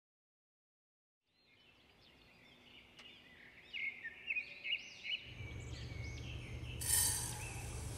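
Faint bird chirps, short rising-and-falling calls repeating a few times a second, fading in after a second and a half of silence. A low hum joins about five seconds in, and a hiss starts near the end.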